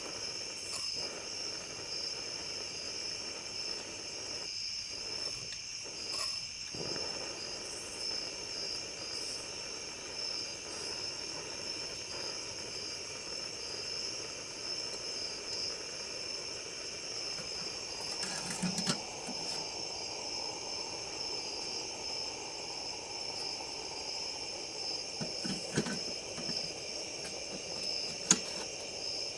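A steady night chorus of crickets chirring. Toward the end a few brief clicks and low knocks come through, the sharpest one near the end.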